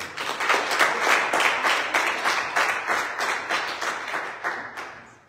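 Congregation clapping in applause, many distinct hand claps, tapering off near the end.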